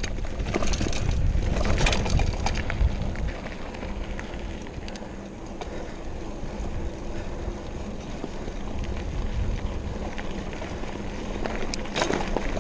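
Mountain bike rolling over a rocky gravel trail: tyres crunching on loose stones and the bike rattling over the bumps, louder in the first few seconds and again near the end.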